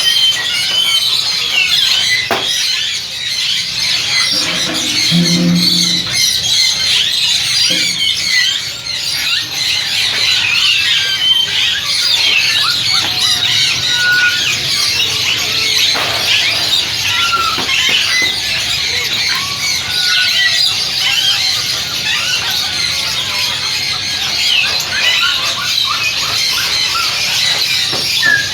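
Many small caged parrots chirping and chattering all at once: a dense, continuous high-pitched twittering with no pause.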